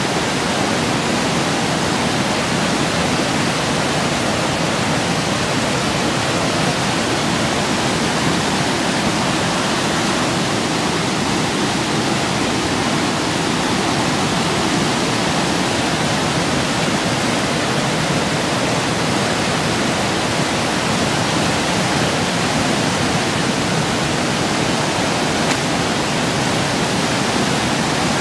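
Floodwater rushing through rapids: a steady roar of whitewater, even in level throughout. The river is over its banks and running among the trees.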